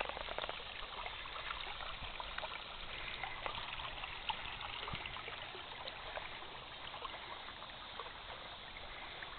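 Shallow stream trickling over rock, a steady babble of water with many small splashes.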